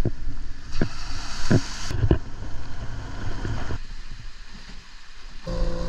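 Vehicle driving along a rough gravel track, rattling, with several knocks as it goes over bumps. About four seconds in it cuts to a quieter stretch. Near the end a steady engine drone starts.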